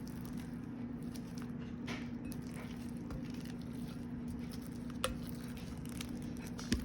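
Homemade clear slime, stiffening after activator, being kneaded and pulled by hand: soft sticky squishes and small clicks, with two sharper pops about five seconds in and near the end. A steady low hum runs underneath.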